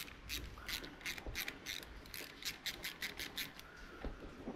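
Socket on a long extension turning the screw of a worm-drive hose clamp on a turbo diesel's intercooler hose to loosen it: a run of quick metallic clicks, about four or five a second.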